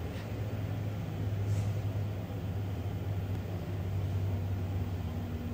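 A steady low rumble that swells and eases slightly, with one faint tick about one and a half seconds in.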